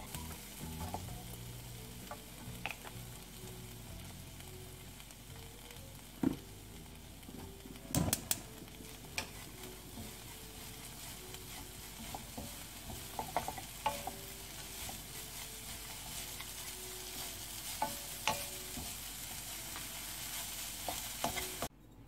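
Small dried anchovies sizzling in oil in a frying pan as they are stir-fried with wooden spatulas, with scattered knocks of wood against the pan, several close together about eight seconds in. The sizzle cuts off suddenly near the end.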